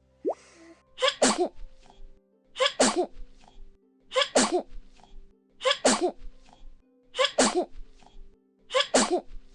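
A child sneezing over and over, about every second and a half, six sneezes of the same shape, each a quick double burst. Soft background music with steady held notes runs underneath.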